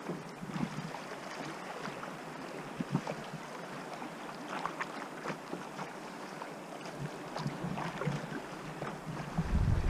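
Fast river water rushing and lapping against a moving canoe's hull, with many small splashes. Near the end, wind starts buffeting the microphone with a low rumble.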